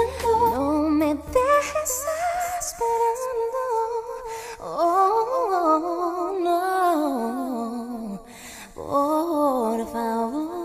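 A woman singing wordless, humming-like vocal lines with vibrato at the end of a song. The bass and backing drop out about two seconds in, leaving the voice nearly alone for a last phrase or two.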